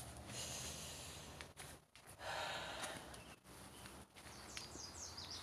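Faint quiet ambience with soft rushes of breath from the person holding the phone, and a few faint high chirps near the end.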